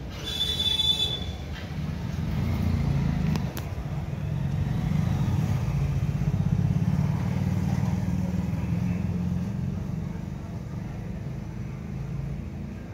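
A motor vehicle's engine running with a low rumble that swells over several seconds, then fades. A brief high-pitched tone sounds just under a second in.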